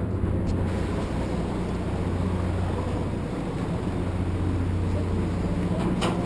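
A riverboat's engine running with a steady low drone. A couple of faint clicks near the end.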